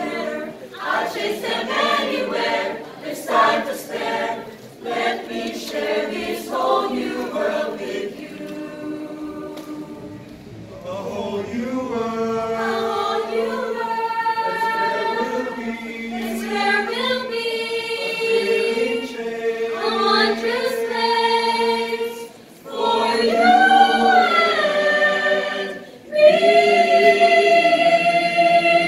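Mixed choir singing a cappella: a quick, clipped rhythmic passage, then long sustained chords, rising to a loud held chord near the end.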